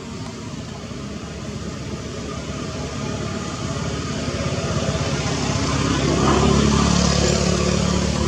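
A motor vehicle's engine running nearby, growing steadily louder as it approaches, loudest about six to seven seconds in.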